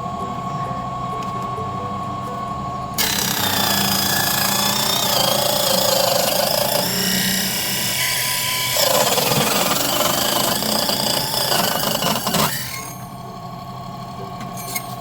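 4-inch mini hobby table saw running free with a steady whine, then cutting through a piece of wood from about three seconds in to about twelve seconds in: a louder, harsh sawing noise whose pitch wavers as the blade is loaded, before it falls back to the free-running whine.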